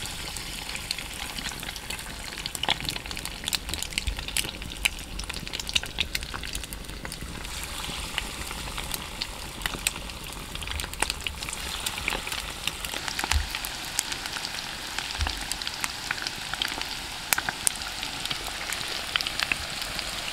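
Egg-white batter balls sizzling and crackling in hot oil in a cast-iron frying pan, the frying growing busier and a little louder as more balls are dropped in.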